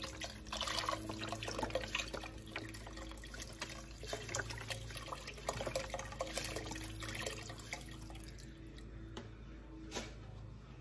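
Chicken broth pouring from a carton into a pot of soup, splashing into the liquid, until the pour ends about eight seconds in. A single sharp click follows near the end.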